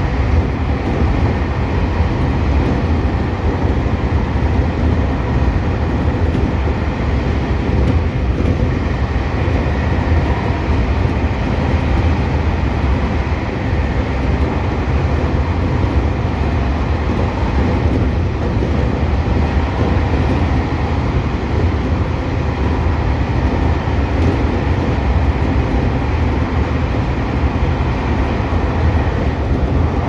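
Seibu 2000 series electric train running at speed, heard from inside the driver's cab: a steady low rumble of wheels on rail and running gear, with no change through the stretch.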